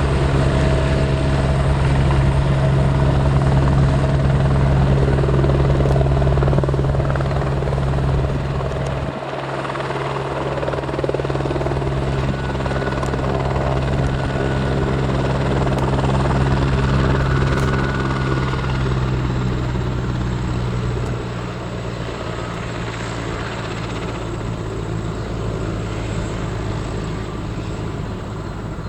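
Helicopter running, most likely the Airbus Helicopters H125, a steady drone with a brief dip about nine seconds in and a drop in level around twenty-one seconds.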